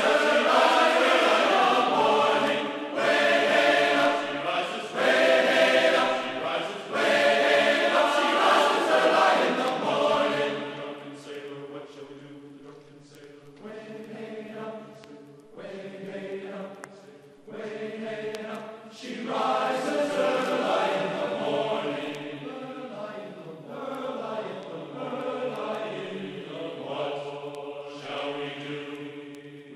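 Background music of held, choir-like chanting voices, fuller and louder for about the first ten seconds, then thinner and quieter.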